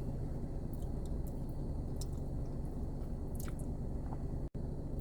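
Chewing a mouthful of creamy chicken Alfredo pasta close to the microphone, with soft wet mouth clicks scattered throughout.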